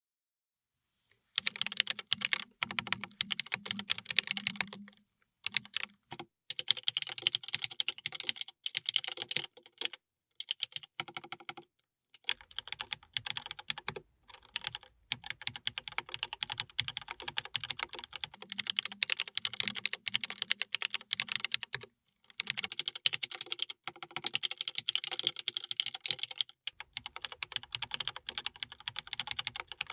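Typing on a TGR Lena custom mechanical keyboard fitted with Rubrehose Gray switches: fast runs of keystrokes, starting about a second in and broken by several short pauses.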